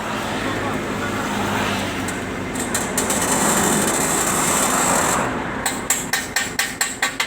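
A vehicle passes, its noise swelling and then falling away over several seconds. About five seconds in, hammer strikes start up again, three or four a second.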